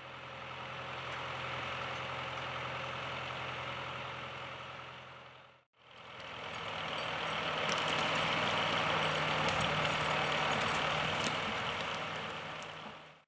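John Deere 2750 tractor engine running steadily, in two spliced stretches with a brief break a little under six seconds in; the second stretch is somewhat louder.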